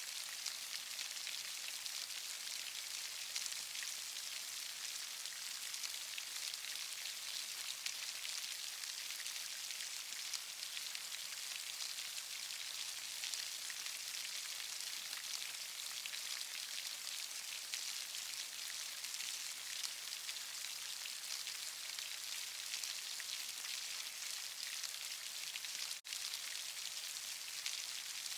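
Steady rain falling, a continuous even hiss of many fine drops, with a split-second dropout near the end.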